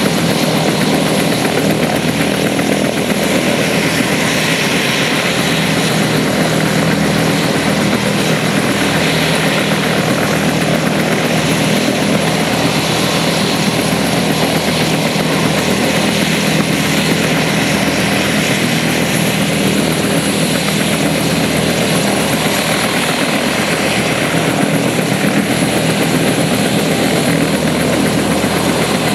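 Bell UH-1H Iroquois (Huey) helicopter running on the ground, its turboshaft engine and two-blade main rotor turning at a steady, unchanging pitch and level.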